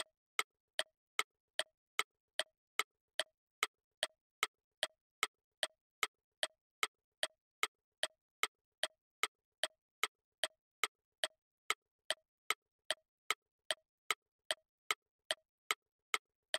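Clock-like ticking sound effect of a quiz countdown timer, counting down the time left to answer. It is an even tick about two and a half times a second.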